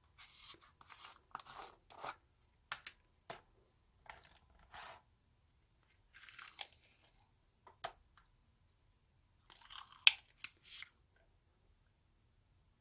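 Foam-bead slime crunching and squishing as its plastic jar is squeezed and a plastic spoon digs it out: a string of short crackly bursts with pauses, the loudest about ten seconds in.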